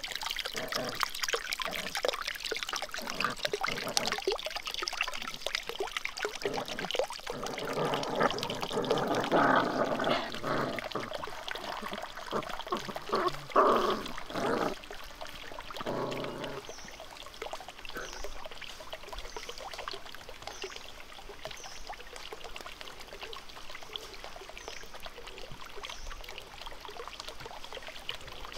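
Water trickling and splashing steadily into a small pond from spinning bamboo water wheels. For several seconds in the middle, puppies eating from a bamboo trough add louder close sounds over the water.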